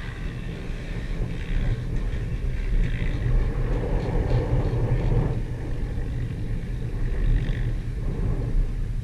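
Dirt bike engine running at low speed, swelling louder for a moment about four to five seconds in.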